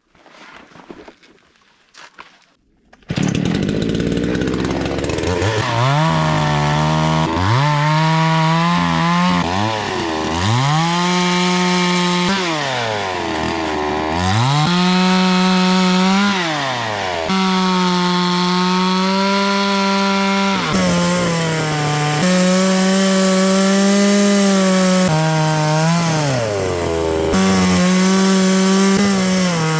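Faint handling sounds, then about three seconds in a chainsaw cuts in at high revs, cutting boards from a log. Its pitch repeatedly sags and climbs back as the chain loads up in the wood and frees again.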